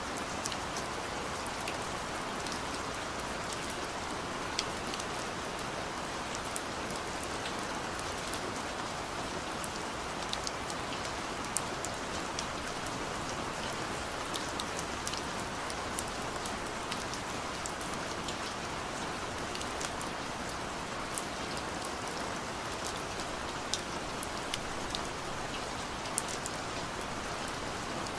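Steady rain falling, with individual drops ticking sharply here and there over the even hiss.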